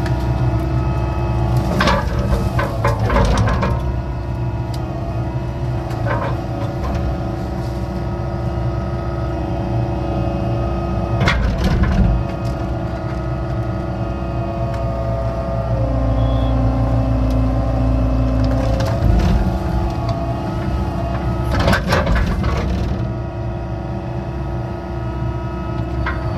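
Excavator's diesel engine running steadily while it digs a ditch, with repeated sharp knocks and cracks from the digging, several times over.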